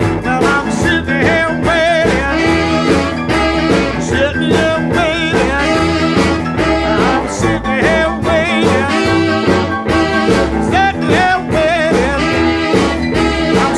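Blues rock-and-roll song in an instrumental break: a lead instrument plays a wavering melody over a steady bass and drum beat.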